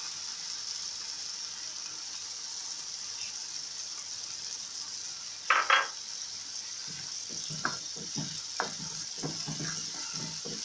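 Onion-and-spice masala sizzling in hot oil in a frying pan just after yogurt is poured in, a steady hiss. Two quick knocks about five and a half seconds in, then a spoon stirring through the pan in short scraping strokes.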